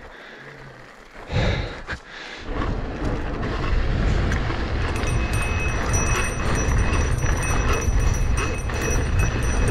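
Downhill mountain bike descending at speed: wind buffeting the camera microphone, with the tyres and frame rattling over the trail. It picks up with a brief loud burst about a second in and settles into a steady, loud rush from about two and a half seconds.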